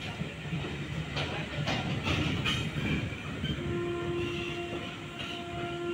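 Indian Railways passenger train running past: coach wheels clacking over rail joints with a steady rumble, then a WAP-4 electric locomotive goes by and a steady pitched tone from it starts about three and a half seconds in.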